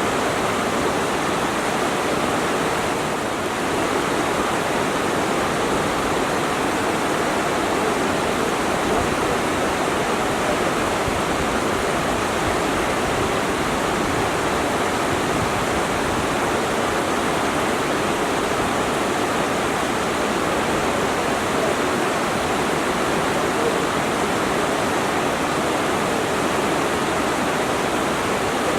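A waterfall: a steady, unbroken rush of falling water.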